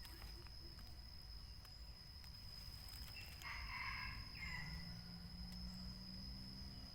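Faint outdoor forest ambience with a steady high-pitched whine and a short bird call about three and a half seconds in.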